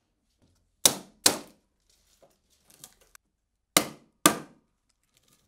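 Four sharp wooden knocks in two pairs, about half a second apart within each pair: the timber battens of a resin-casting mould being knocked about as the mould is stripped from the cured epoxy.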